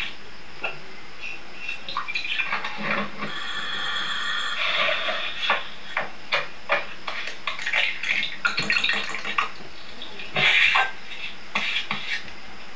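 Cooking sounds heard through a TV speaker: a spatula clinking and scraping in a nonstick pan as cooked chunks are stirred and mashed into a paste, in an uneven run of clicks and scrapes. There is a short high steady tone about three seconds in, and the loudest clatter comes near the end.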